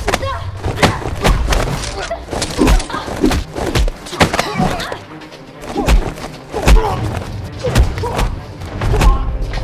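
Fight-scene punch and kick impact sound effects: a rapid series of hard hits, about a dozen, with a brief lull about five seconds in. Grunts of effort and background music run underneath.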